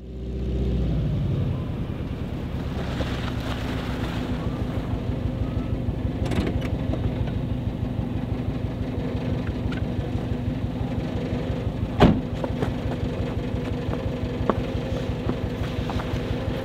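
1991 Volkswagen Westfalia camper van's engine idling steadily with an even pulsing beat, a little louder in the first second or so. One sharp knock about twelve seconds in.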